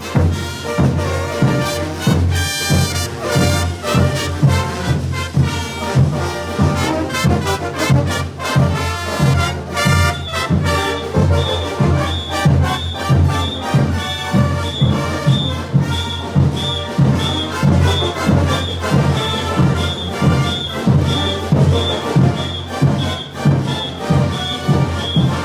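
Bolivian brass band playing a morenada: trumpets and trombones over a steady, heavy drum beat of about two strokes a second.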